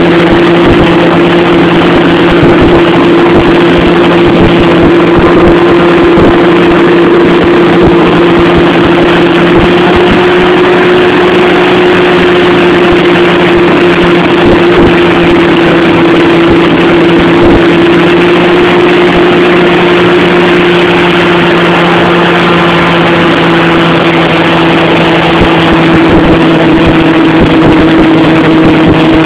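Hovercraft under way, heard from on board: its engine and propeller fan give a loud, steady drone with a constant hum that holds its pitch throughout.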